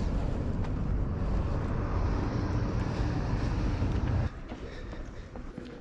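Loud, steady low outdoor rumble picked up by a body-worn action camera, cutting off abruptly a little over four seconds in to a much quieter street ambience with a few faint ticks.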